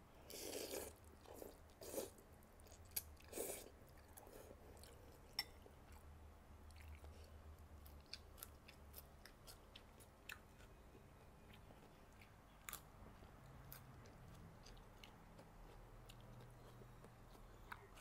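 A mouthful of rice noodles from Thai beef noodle soup is slurped up in the first second, with a few more loud mouthfuls over the next few seconds. Quiet chewing follows, with soft mouth clicks every so often.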